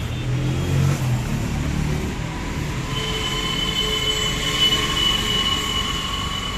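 A low rumble for the first two seconds, then a steady high-pitched squeal from about three seconds in that holds on.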